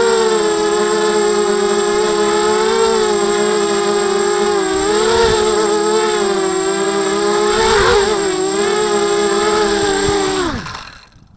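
ZMR 250 mini quadcopter's brushless motors and propellers whining steadily, the pitch wavering up and down as the throttle changes. About ten and a half seconds in, the pitch falls and the motors cut off as the quad comes down in the grass.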